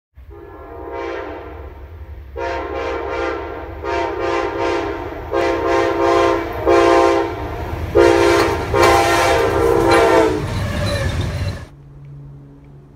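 Approaching diesel locomotive sounding its air horn in a series of loud blasts of varying length, the last one long, over the low rumble of the engine and train. The sound cuts off abruptly near the end.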